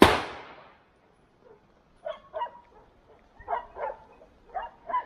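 A sharp bang at the start that dies away over about half a second, then hunting dogs barking in short bursts, about six barks spread over the last three seconds.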